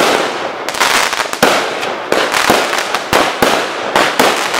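Aerial firework shells bursting in quick succession: about eight loud bangs, each trailing off into a noisy tail before the next.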